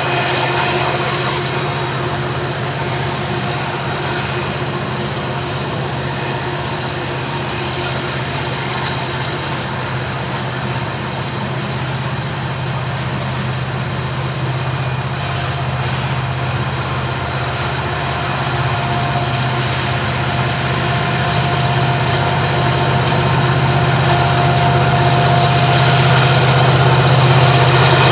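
Loaded coal hopper cars rolling past with steady wheel-and-rail noise, under a steady diesel locomotive drone. The drone grows louder over the last ten seconds or so as the train's rear diesel locomotives approach, working upgrade.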